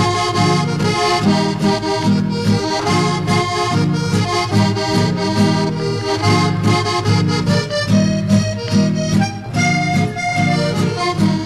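Accordion-led chotis folk music playing an instrumental passage without singing, over a steady repeating beat in the low accompaniment.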